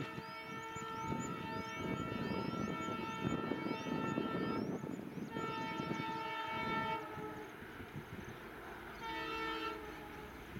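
WDG3A diesel locomotive's multi-tone horn sounding three times: a long blast of about four and a half seconds, a second of about a second and a half, and a short toot near the end, over the low rumble of the approaching train.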